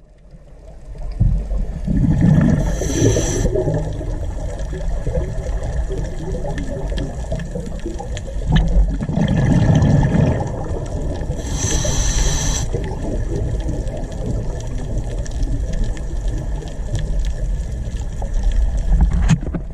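Underwater sound of the sea: a steady low water rumble, with two louder stretches about nine seconds apart of bubbling followed by a hiss, typical of a scuba diver breathing through a regulator.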